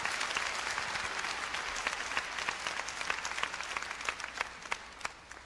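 Concert audience applauding. The dense clapping thins to a few scattered claps and dies away near the end.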